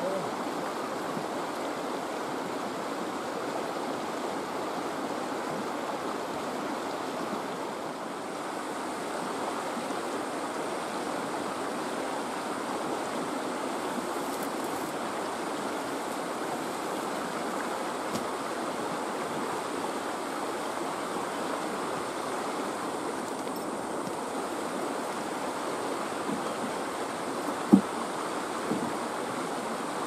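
Steady rushing of a fast mountain river. A single sharp click sounds a couple of seconds before the end, with a fainter one about a second later.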